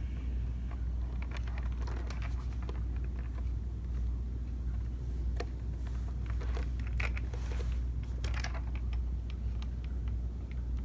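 Hands handling a plastic drone remote controller: scattered small clicks, taps and light crinkling, over a steady low hum.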